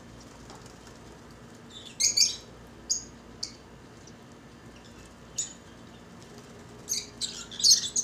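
Lovebirds giving short, shrill chirps and squawks in scattered bursts: a cluster about two seconds in, a few single calls, and a louder run of calls near the end.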